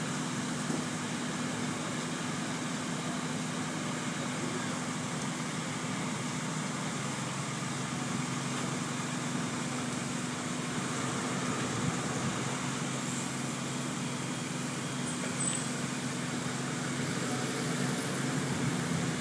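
A large engine running steadily with a low, even hum, over a constant wash of outdoor noise.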